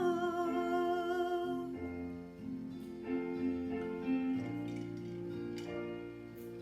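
A female singer holds the last note of a line with vibrato, ending a little under two seconds in, and the karaoke backing track plays on alone with soft sustained instrumental chords.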